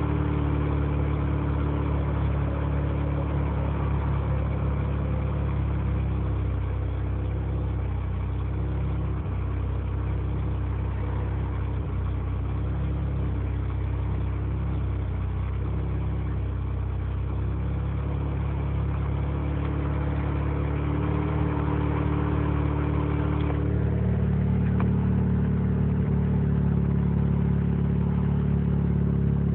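Mazda 20B three-rotor rotary engine in an RX-7 running at a rough, weird idle. The idle wavers unevenly, then steps up a little and gets slightly louder about two-thirds of the way through.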